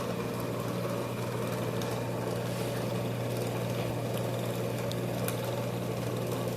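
AMMCO brake lathe running on its slow speed setting: a steady electric-motor and belt-drive hum, with a few faint ticks.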